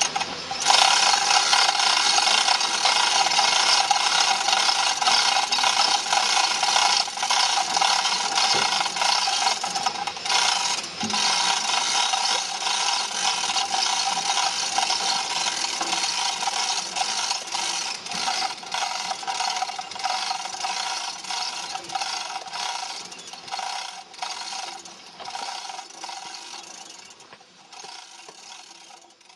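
Scraping, rattling and knocking of a sand mold being broken away from a freshly poured cast-iron piece, continuous and busy, fading out over the last several seconds.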